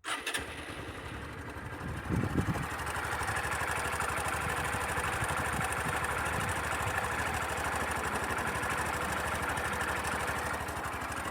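Sundiro Honda CBF125T's single-cylinder engine idling steadily, picked up by a phone. It carries the timing-chain noise the owner is demonstrating, which he says is hard to make out at idle but still faintly there.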